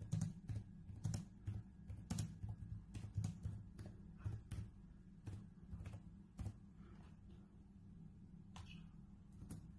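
Typing on a laptop keyboard: quick, irregular key clicks for about six seconds, then a few more near the end, with a low steady hum underneath.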